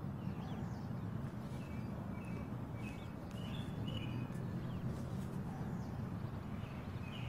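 Ambience with a steady low rumble, over which small birds give short chirps every second or so.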